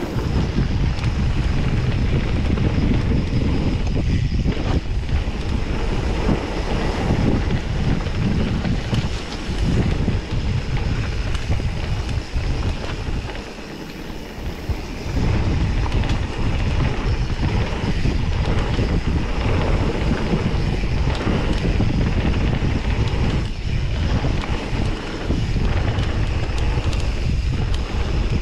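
Wind buffeting the microphone of a mountain bike's handlebar-mounted action camera during a downhill trail ride, mixed with the bike's tyres and rattle over the dirt and rock. The rush dips briefly about halfway through.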